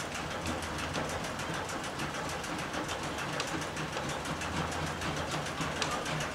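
Small diesel shunting locomotive idling, its engine running with a low hum and a rapid, even clatter.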